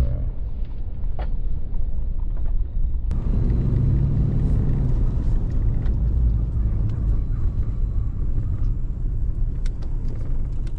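Steady low rumble of a truck driving slowly on a sandy dirt road, heard from inside the cab: engine and tyre noise. About three seconds in, a hiss of road noise comes in on top.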